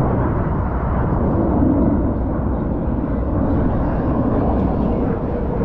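Fighter jet engine rumbling steadily as the jet climbs.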